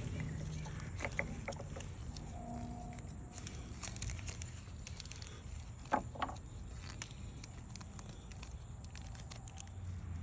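Plastic toy packaging being handled and opened: light scattered rustles and clicks, with two sharper clicks about six seconds in, over a steady low background rumble.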